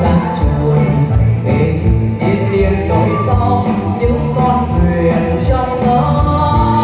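Live band music played through a PA system: a man singing into a handheld microphone over electronic keyboards and a steady drum beat.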